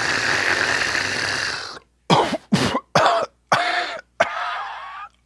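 A person's long, breathy hiss of breath, then a quick run of about five hard coughs ending in a longer, raspy, wheezing cough.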